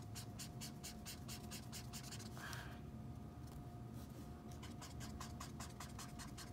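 Ohuhu alcohol marker tip scratching over paper in quick back-and-forth colouring strokes, about five a second, laying down an even fill. The strokes stop for about two seconds midway, then resume.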